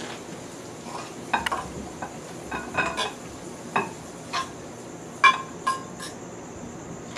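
A metal utensil clinking and scraping against a pan and a serving bowl, about a dozen light strikes, some ringing briefly, as food is spooned from the pan into the bowl. A faint steady hiss runs underneath.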